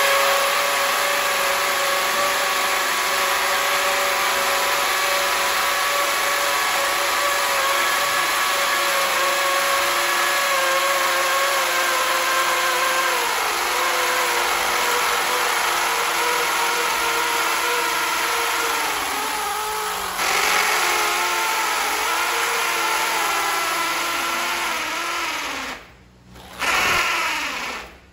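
Cordless hammer drills in hammer mode boring into concrete with masonry bits: a steady motor whine over rapid hammering, the whine sagging slowly in pitch as the bits load up. The drilling stops about 26 seconds in, runs again briefly, and restarts at the end.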